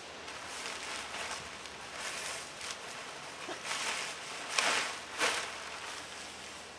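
Backpacking tarp fabric rustling and swishing as it is unfolded and shaken out by hand, with a few louder swishes about four to five seconds in.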